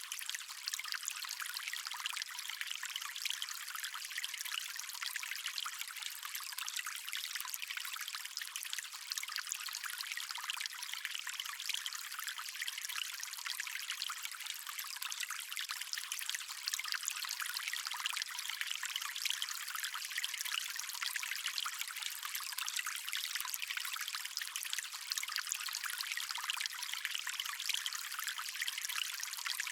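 Stream water flowing and trickling steadily: an even, bright rush with no deep rumble.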